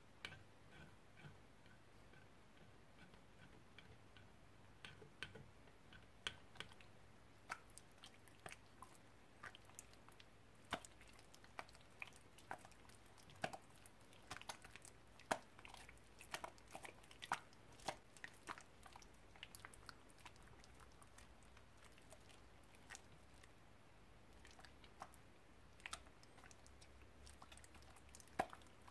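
Sticky slime worked in a glass bowl, first stirred with a spoon and then kneaded and squeezed by hand, giving faint, irregular wet clicks and pops that come thicker and louder after the first few seconds.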